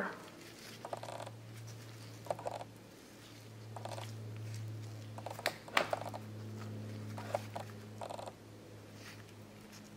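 Faint handling noise: soft rustles and a few small clicks as gloved hands turn a baked macaron shell, over a steady low hum.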